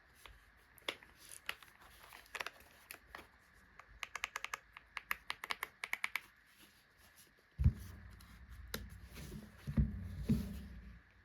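Keystrokes on an AULA F108 Pro mechanical keyboard: scattered single key presses, then a quick burst of typing about four seconds in. In the second half a heavy thump and several low, dull thuds and rumbling take over.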